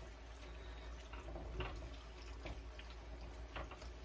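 A spoon stirring a thick creamy mixture in a pan, heard as a few light clicks and scrapes over a faint steady hiss.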